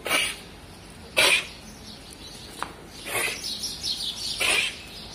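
Four short, noisy bursts a second or two apart, the second the loudest, from a goat feeding at a leaf held out to it by hand. Small birds chirp in the background.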